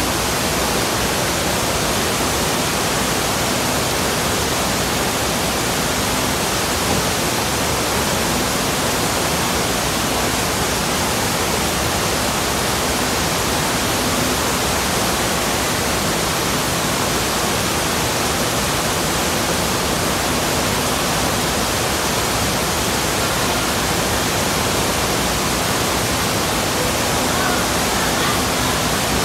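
Steady rush of churning water surging out of a wave-pool tunnel, even and unbroken, with a faint low hum beneath it.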